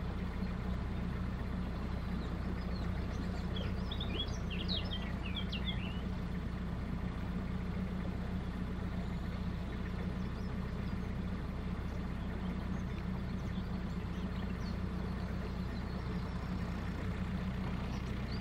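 Narrowboat's engine running steadily at low revs with a constant low hum. A small bird chirps a few times about four to six seconds in.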